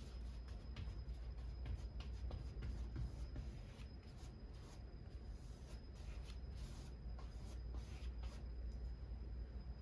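Paintbrush stroking thick gesso onto a canvas: a run of short, irregular scratchy brush strokes.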